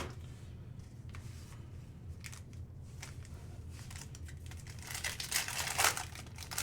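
A trading-card pack wrapper being torn open and crinkled, loudest about five to six seconds in, with a few light clicks before it.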